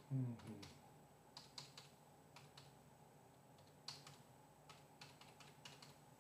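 Faint keystrokes on a computer keyboard, typed in small irregular runs of clicks. A short, low vocal sound falling in pitch comes right at the start.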